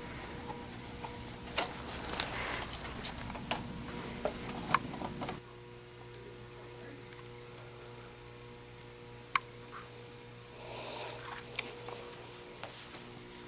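Small objects clicking and knocking as items are taken from a box and set down on a table, over a steady hum. About five seconds in, the sound cuts to a quieter steady hum with a few isolated clicks.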